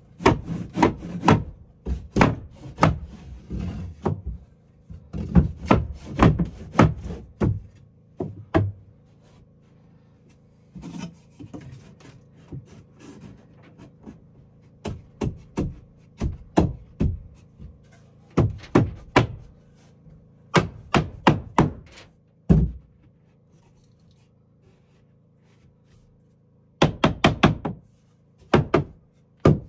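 Repeated thuds and knocks on wood in quick runs of several blows, with pauses between the runs and a quiet gap of a few seconds before two last short runs.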